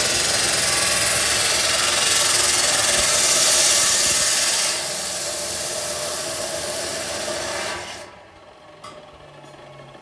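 Abrasive chop saw cutting galvanized steel channel: a loud, steady grinding hiss that drops back about five seconds in as the disc finishes the cut, the motor runs on more quietly, and it stops about eight seconds in, leaving a few light clicks.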